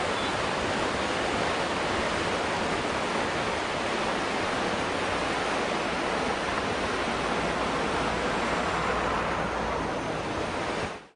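Steady rushing of fast-flowing floodwater on the swollen Godavari river, an even roar with no distinct events, cutting off suddenly near the end.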